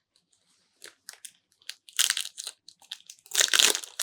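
Foil wrapper of a Kayou trading-card booster pack being crinkled and torn open. A few light crackles come first, then two louder bursts of crinkling and tearing, about two seconds in and again near the end.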